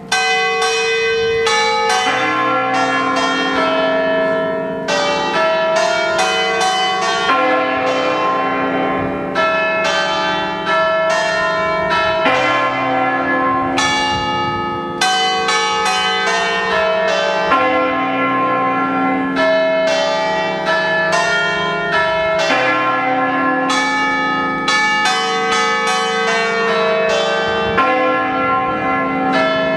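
Church bells from a peal of eight in C, cast by Pasquale Mazzola in 1879, struck in quick succession to play a festive tune. The notes overlap and ring on. The playing starts afresh with a loud stroke at the very start.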